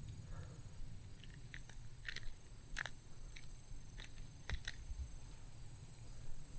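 Faint, irregular clicks of a small baitcasting reel and rod being worked while a topwater lure is retrieved, over a low wind rumble.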